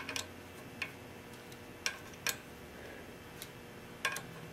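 Light metal clicks of an Allen wrench against the bolts of an adult tricycle's handlebar stem top plate as the four bolts are tightened: about eight irregular ticks.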